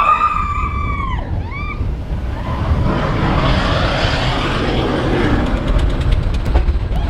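Seven Dwarfs Mine Train roller coaster rushing past on its track, a rumbling rush with some rattling near the end. Riders on the train give drawn-out high screams at the start.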